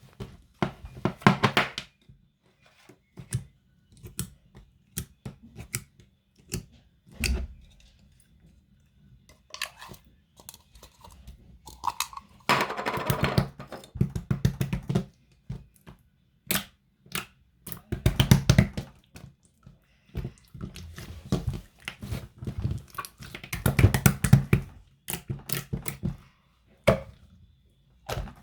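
Hands squishing and poking a jiggly slime, making bursts of wet clicking and popping with short pauses between.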